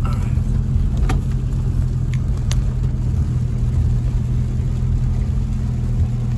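Steady low rumble of a car's engine and its tyres on a wet road, heard from inside the cabin, with a few light ticks.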